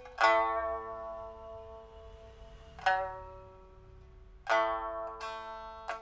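Pipa with an old rosewood body, a newly fitted fire-baked soundboard and 3 mm bamboo frets, strung with a steel first string and copper second to fourth strings, played slowly in ringing chords. One chord sounds just after the start and another near the middle, then three come in quick succession near the end. Each is struck and then fades.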